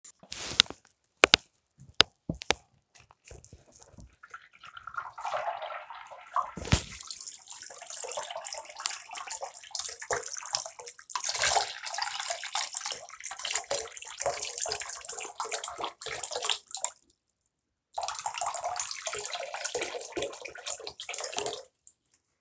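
Bathroom sink tap running, its stream splashing onto a large water balloon and into the basin; the water sound cuts out for about a second near three-quarters of the way through. A few sharp knocks come in the first seconds, before the water starts.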